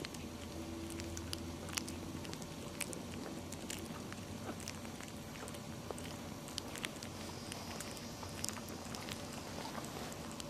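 Young puppies making small, irregular clicks and smacks, a few each second, over a steady low room hum.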